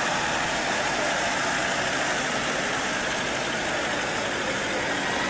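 A motor vehicle engine running steadily at low speed, with a constant wash of street noise.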